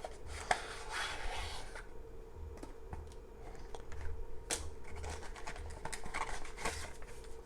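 A small product box and its packaging being handled by hand: light rustling and scratching with a few soft taps.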